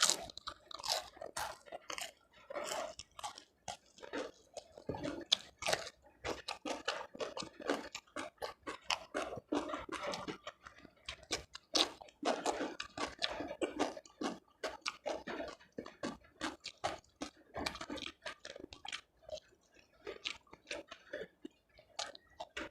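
A person chewing food with their mouth, with many crisp crunches, several a second.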